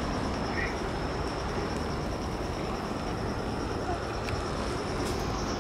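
Insects chirping in a steady, high, pulsing trill over a low, even city rumble.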